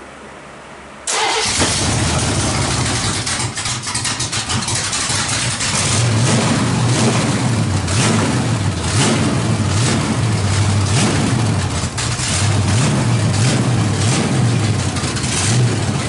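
Chevy 350 small-block V8 with its valve covers off, on open headers, catching suddenly about a second in and running loud, the throttle worked by hand at the carburetor, then settling into a steadier idle for a running valve-lifter adjustment.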